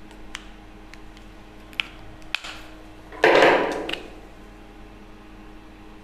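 Marker pen on a whiteboard: a few faint sharp clicks as it taps and draws, then a louder short rush of noise that starts suddenly about three seconds in and fades within a second. A steady low hum runs underneath.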